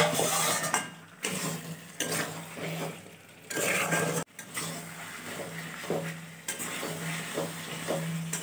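A spatula stirring and scraping chicken pieces around an aluminium kadai in irregular strokes, with the masala sizzling in the hot oil. This is the chicken being sautéed in the spice paste.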